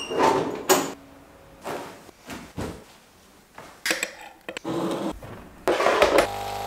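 A quick series of household handling sounds: knocks and clacks as tall window shutters are pushed open, then small clatters of a candle jar and kitchen things being handled. Near the end a steady electric hum starts as the electric kettle is switched on.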